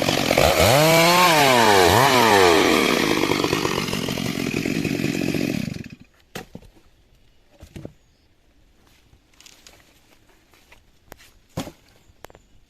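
Stihl MS 382 two-stroke chainsaw running hard, its revs dipping and recovering twice. The saw then runs lower and cuts off suddenly about halfway through, leaving a few faint knocks.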